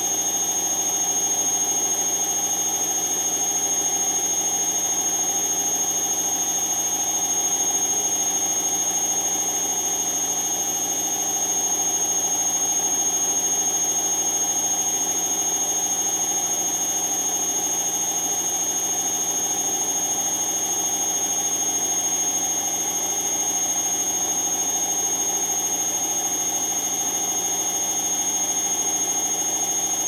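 Bosch Maxx 6 washing machine's drum spinning at high speed: a steady, high-pitched motor whine over a lower hum, holding at one speed throughout.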